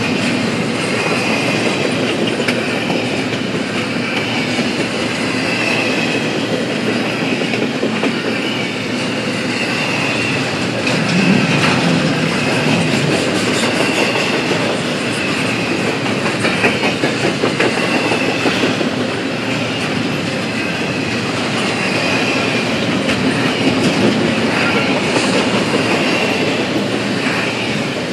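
Double-stack intermodal freight train's well cars rolling past: a steady rumble and clatter of steel wheels on the rails, with a faint high wheel squeal that comes and goes.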